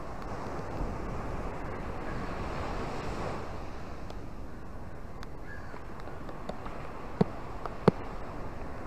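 Small waves washing onto a sandy, rocky shore: a steady surf hiss that swells during the first few seconds. Near the end come two short, sharp clicks less than a second apart, louder than the surf.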